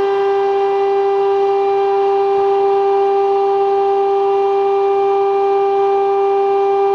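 Stone CNC router spindle running with a steady, unchanging whine while cutting marble.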